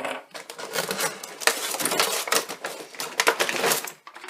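Packaging being handled and pulled open: a dense run of crackling, rustling and small clicks that eases off near the end.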